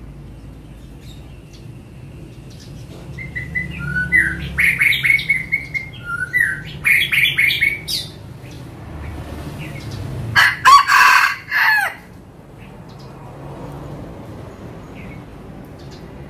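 An F1 junglefowl rooster crows once, a loud, short crow about ten seconds in. Before it, high bird chirps come in a quick run for several seconds.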